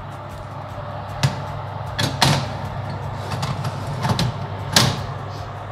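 Oven door and metal baking tray: several sharp knocks and clatters, the loudest about two seconds in and again near five seconds, as the tray is put into the oven and the door shut, over a steady low hum.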